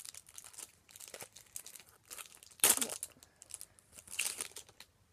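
Foil wrapper of a Match Attax football card pack being torn open and crinkled, in a series of short rustling bursts, the loudest about halfway through.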